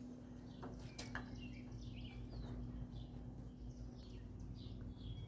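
Small birds chirping repeatedly, short high chirps and quick glides, over a low steady hum, with a couple of faint clicks about a second in.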